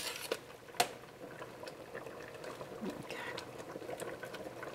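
Potatoes boiling in water in a large soup kettle, a faint bubbling with small pops and ticks. There is one sharp click a little under a second in.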